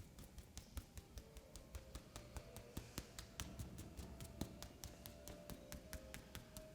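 Rapid, evenly spaced clicks, about five a second, over faint soft background music.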